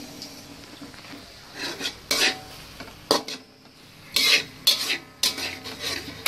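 Utensil stirring and scraping in a cooking pan: about six short, loud scrapes over a faint sizzle.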